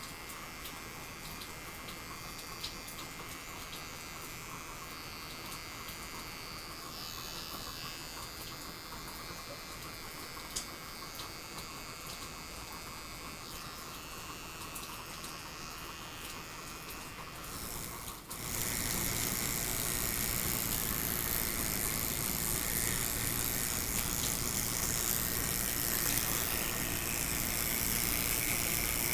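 Electric hair clipper buzzing over a steady rain-sound backdrop, with a few light clicks. About eighteen seconds in, a louder, even hiss suddenly comes in and holds.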